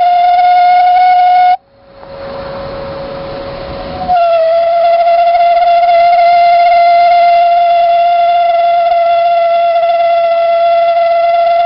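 Toyotomi laser-burner kerosene heater giving off a loud, steady whistle-like howl, the resonance that the burner makes when it is short of combustion air. The howl cuts off suddenly near the start, leaving a couple of seconds of burner rush with a fainter, lower tone, then returns at about four seconds and holds steady.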